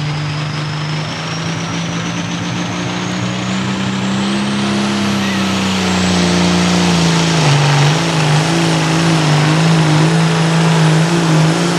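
A turbocharged 466-cubic-inch hot farm tractor diesel running hard under load as it pulls the sled. A turbo whine climbs in pitch over the first several seconds while the engine gets louder. The engine note dips briefly past the middle, then holds steady.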